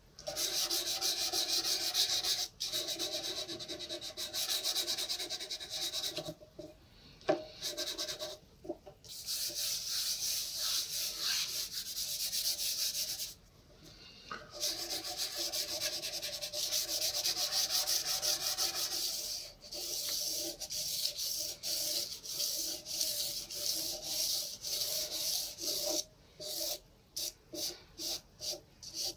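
Soft pastel being rubbed across paper in fast back-and-forth strokes, a steady scratchy hiss broken by a few short pauses. Near the end it turns into short, separate strokes about twice a second.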